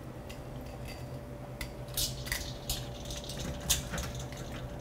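Stainless steel tongs clinking against a metal bowl of ice water, with ice cubes knocking, as blanched greens are stirred in to chill. The clinks are sharp and irregular and start about a second and a half in, over a steady kitchen hum.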